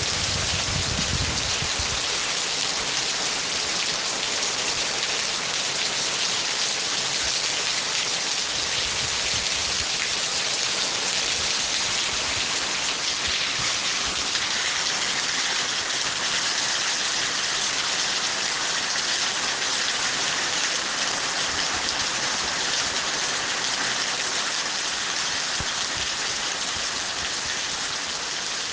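Steady, dense rain falling and hissing on surfaces, with a brief low rumble in the first couple of seconds.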